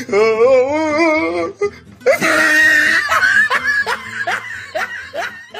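Comic laughter sound effect over music: a warbling, wavering voice at first, then a noisy burst and a run of short repeated laughs.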